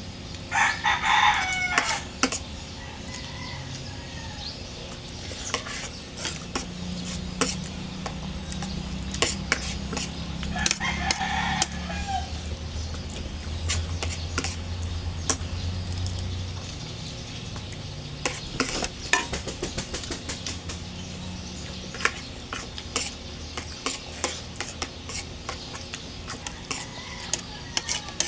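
A rooster crows twice, about ten seconds apart, over scattered sharp clicks of cutlery on dishes and a low hum that swells in the middle.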